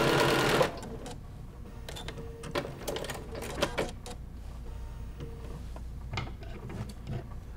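Domestic sewing machine running fast as it stitches, then stopping abruptly under a second in. Light scattered clicks follow as the fabric is handled under the foot.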